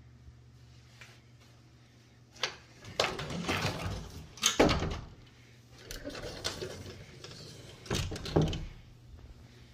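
A door being handled at close range: a string of knocks and clunks with rustling in between, the loudest clunk about halfway through.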